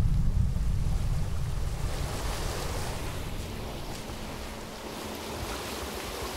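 Fast-running creek water rushing over rocks, a steady hiss that fills in about two seconds in while a deep low rumble fades away.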